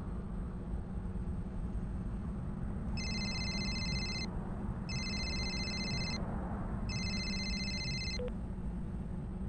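A cellphone ringing three times, each electronic ring lasting about a second and a half with short gaps between, over the steady low rumble of a car's cabin while driving.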